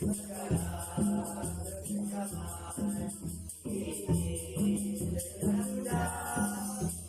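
Background music with a steady beat: a repeating low note about twice a second under a fast, even high ticking rhythm.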